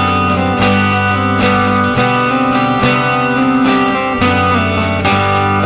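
Instrumental passage of a song: strummed acoustic guitar over bass notes, the chords changing every second or two.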